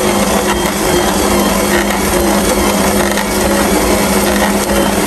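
Kenwood Prospero+ 900W stand mixer running steadily with an even hum, kneading flour dough in its stainless steel bowl.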